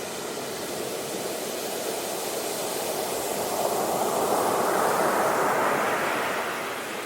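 Ocean waves washing ashore: a steady rush of surf that swells as a wave breaks and comes in, loudest a few seconds in, then draws back near the end.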